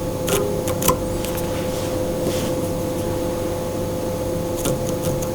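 Steady mechanical hum with a few faint clicks of small handling noises.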